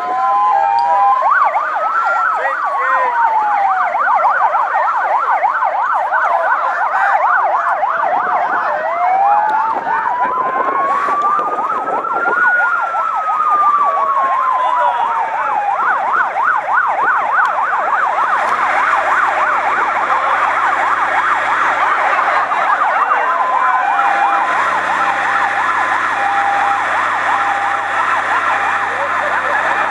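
Several electronic sirens sounding at once: a fast yelp with slow rising and falling wails over it, and a two-tone hi-lo pattern near the end. A low steady hum joins about two-thirds of the way through.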